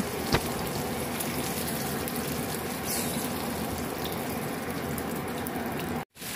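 Petai (stink beans) frying in shallow oil in a nonstick pan: a steady sizzle, with one light click just after the start. The sound breaks off briefly near the end.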